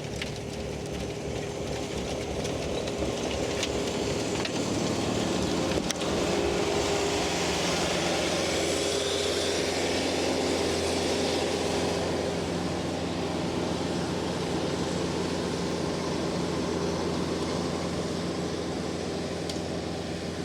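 Kubota tractor engine running steadily, driving a rear PTO snowblower through deep snow, with a rushing hiss of snow thrown from the chute that grows stronger a few seconds in.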